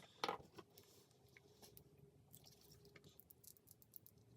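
Near silence with faint small clicks and scrapes of tools handling the parts of an iPod nano 5th gen. during disassembly, with one brief louder scrape just after the start.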